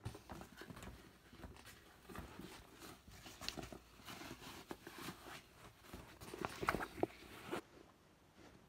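Clothing handling noise: rustling and light knocks as camouflage trouser fabric is worked over a sock. Near the end there is a louder cluster of knocks and rustles as a combat boot is pulled onto the foot.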